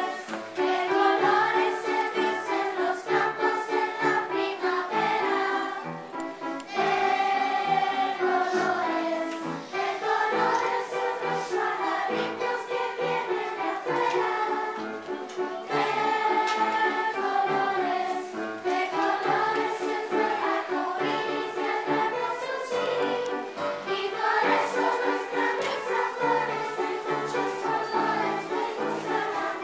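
A children's choir singing a song in unison over an accompaniment with a steady, pulsing bass line.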